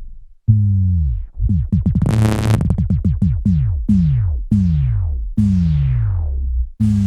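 Electric bass guitar imitating an anime sound effect: a string of notes that each slide down in pitch. About two seconds in comes a flurry of quick notes with a bright buzz, followed by several longer falling notes.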